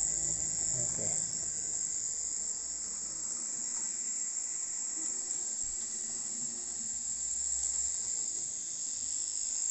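Piko BR64 model steam tank locomotive running on the layout's track: a steady high-pitched hiss with a faint low rumble that comes and goes.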